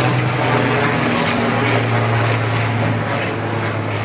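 A loud, steady engine drone with a constant low hum, easing off a little near the end.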